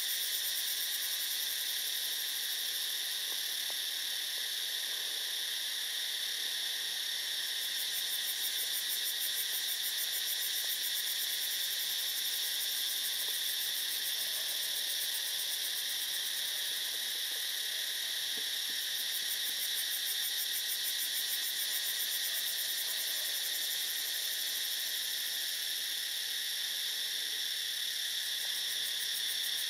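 Steady high-pitched insect chorus, several shrill tones layered over one another with a fine rapid pulsing in the highest one.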